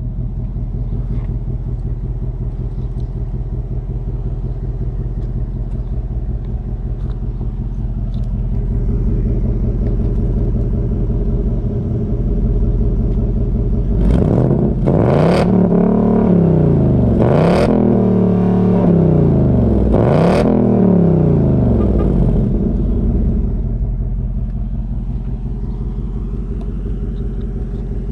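2019 Ford Mustang GT's 5.0-litre V8 idling at the exhaust tips with a deep, steady rumble. Midway it is blipped through a series of quick revs, each rising and falling in pitch, about two to three seconds apart, before settling back to idle.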